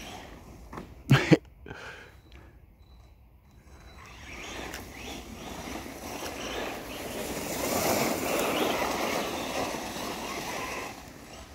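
Battery-powered RC car driving over dry fallen leaves. Two sharp knocks come about a second in, then the car's motor and tyres rustling through the leaves grow louder, peak partway through, and fade near the end.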